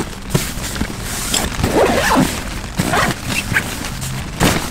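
Nylon backpack being packed: fabric rustling and scraping, with short clicks from its straps and buckles at uneven intervals.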